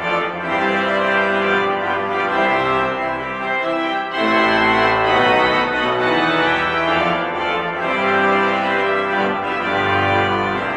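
Organ music playing sustained chords that change every second or two.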